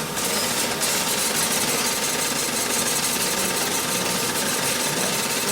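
Office printer running, a steady fast mechanical rattle.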